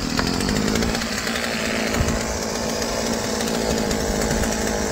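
Poulan two-stroke chainsaw engine running steadily, just fired up on the starter cord after its badly out-of-adjustment carburetor screws were reset.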